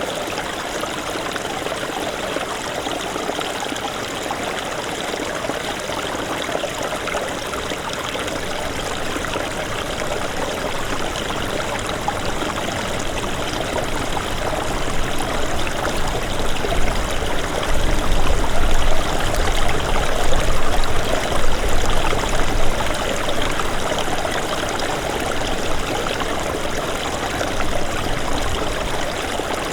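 Small snowmelt stream running steadily over its bed, a dense, even rush of water. Partway through, a low rumble swells underneath for several seconds, then eases off.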